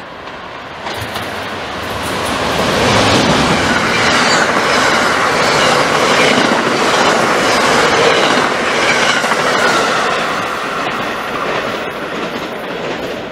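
A passenger train of stainless-steel cars passing at speed: a rushing rumble that builds over the first few seconds, carries a regular clatter of wheels over the rail joints at its loudest, then slowly fades as the cars go by.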